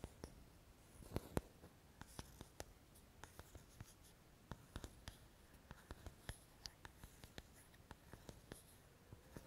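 Faint, irregular small clicks and taps from small objects handled close to the microphone, with the two loudest about a second in.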